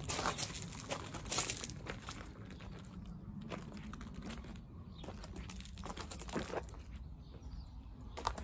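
Footsteps crunching on loose gravel at an irregular walking pace, loudest about a second and a half in, over a low steady rumble.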